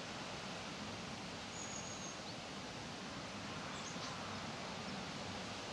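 Steady hiss of leaves rustling in the breeze, with a faint thin high bird whistle about two seconds in and a couple of faint short chirps around four seconds.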